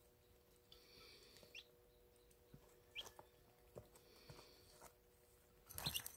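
Baby chicks peeping faintly, a few short high peeps, with a louder burst of scratching and rustling among them near the end.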